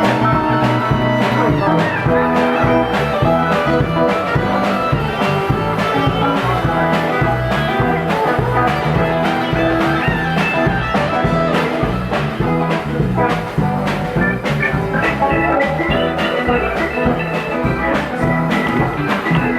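Live rock band playing an instrumental passage: electric guitar lines over bass and a drum kit keeping a steady beat.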